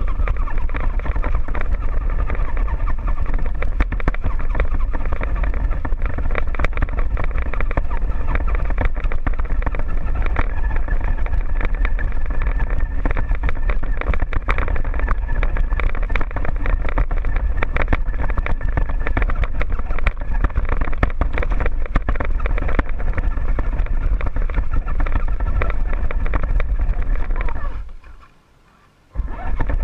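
Onboard sound of a radio-controlled scale crawler driving over a rough dirt trail: a steady motor and gear whine over a constant deep rumble, with many small clicks and rattles from the chassis. The sound cuts out for about a second near the end, then comes back.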